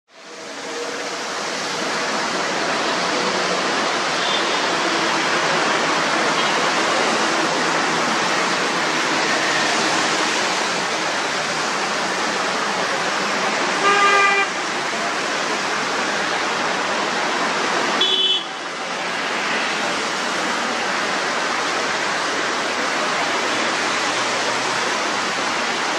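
Steady hiss of heavy road traffic on a wet road, tyres and engines blending together. A vehicle horn sounds about halfway through, and a shorter horn toot follows a few seconds later.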